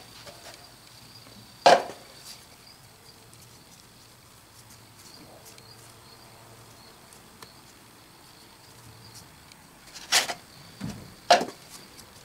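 Oil-bonded foundry sand being pressed by hand into an aluminium molding flask, a soft faint sound, broken by sharp knocks on the workbench: one about two seconds in and two close together near the end.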